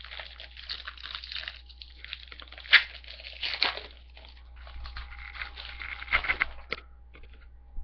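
Trading-card pack wrapper crinkling and tearing as it is opened by hand, in uneven crackles with the sharpest one about a third of the way in.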